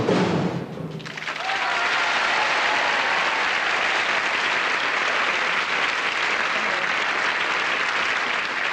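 A marching band's drums finish their final beats about half a second in. After a brief dip, a studio audience applauds steadily.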